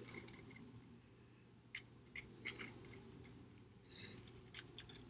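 Very faint, scattered small clicks of a paring knife being worked around the inside of an avocado half to free the flesh from the skin.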